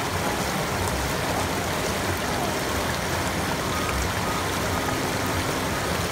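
Rushing water of a mountain stream or cascade, a steady even rush.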